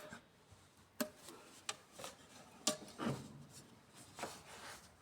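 Light, scattered taps and clicks, about six over a few seconds, from soldering work on a metal organ pipe.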